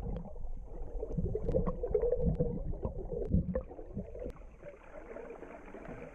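Muffled water gurgling over a low, uneven rumble, with scattered small clicks.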